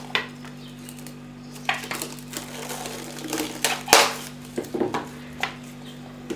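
Plastic cling film crinkling and crackling as it is pulled and stretched over glasses, in a string of short irregular rustles with a few light knocks.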